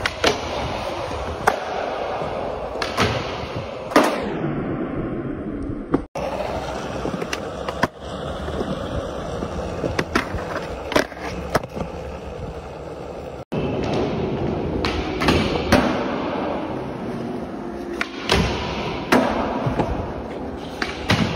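Skateboard wheels rolling on smooth concrete, with repeated sharp clacks of the tail popping and the board landing as flip tricks are done. The sound changes abruptly twice where separate takes are cut together.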